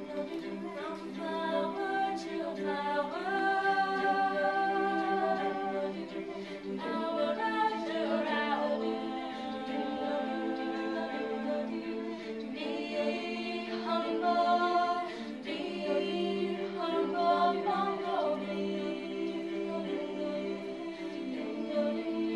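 Mixed-voice a cappella group of young men and women singing into handheld microphones: sustained chords in the lower voices with a higher melody line moving above them.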